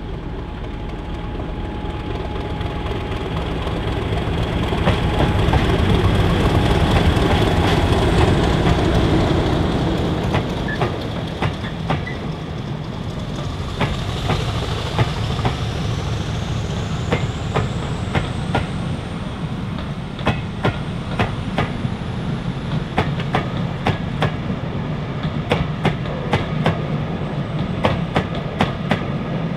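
A Class 50 diesel-electric locomotive hauling a train past, the steady drone of its English Electric 16-cylinder engine building to a peak and easing off. As the coaches follow, the wheels clickety-clack over the rail joints in a long run of sharp clicks.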